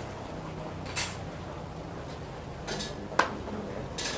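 A metal ladle knocking against a large metal cooking pot, three sharp clinks: about a second in, the loudest around three seconds in, and one near the end.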